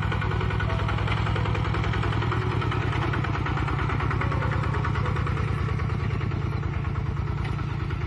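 Kubota RT-120 Plus walking tractor's single-cylinder diesel engine running steadily under load while it pulls a disc plough through the soil.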